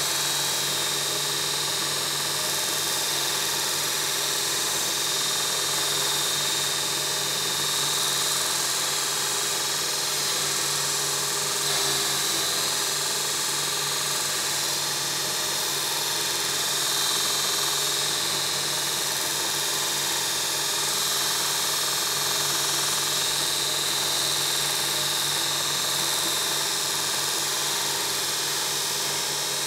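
2x42 belt grinder running steadily, its abrasive belt grinding a steel strip with a continuous high hiss over a low motor hum.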